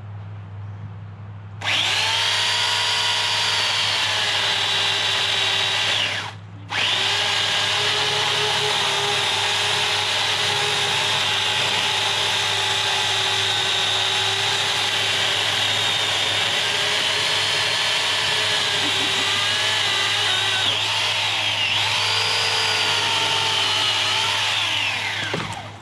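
Electric chainsaw cutting through a tree branch, a loud steady whine. It starts about two seconds in and stops briefly about six seconds in. It then runs on, dipping slightly in pitch now and then under load, and winds down just before the end.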